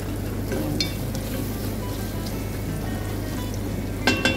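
Diced carrots and onions sizzling in a pot as a wooden spatula stirs them, with a couple of sharp knocks near the end, likely the spatula against the pot. Background music plays underneath.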